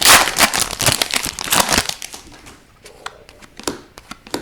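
Plastic-foil wrapper of a hockey card pack crinkling and crumpling for about two seconds, followed by a few scattered light clicks and taps.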